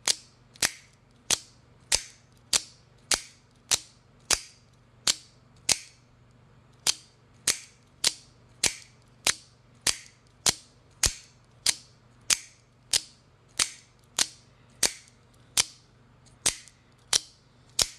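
AKC F-16 out-the-front automatic knife firing its blade out and back in, over and over: a sharp snap roughly every half second, with one short pause about a third of the way in.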